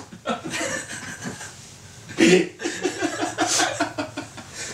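A woman laughing behind her hand, breaking into a louder run of quick ha-ha pulses about two seconds in.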